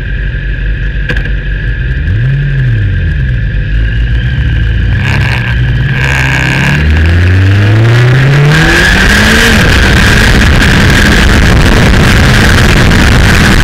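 Kawasaki Ninja motorcycle engine idling, given a brief throttle blip about two seconds in, then pulling away with the revs climbing and a gear change near ten seconds. From about eight seconds, loud wind rush on the bike-mounted microphone covers much of the engine as speed builds.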